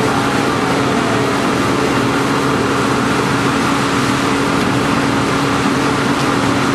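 Fire engine's engine running steadily at a fire scene, a constant drone with a steady hum under it.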